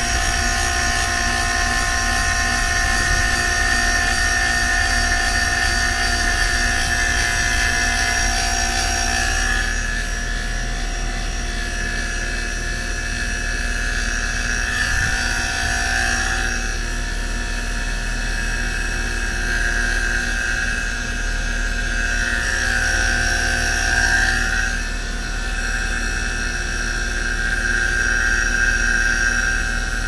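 CPS 8 CFM vacuum pump running steadily, evacuating an air-conditioning system toward a deep vacuum; its whine swells and fades slightly every several seconds.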